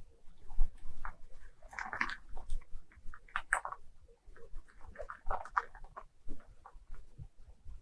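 Frozen lake ice creaking and squeaking in many short, irregular chirps and pops as the ice sheet shifts and strains.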